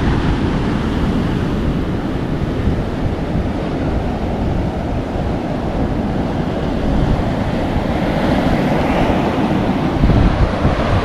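Surf breaking and washing up a sandy beach, a steady rush of waves, with wind rumbling on the microphone. It swells louder for a moment near the end.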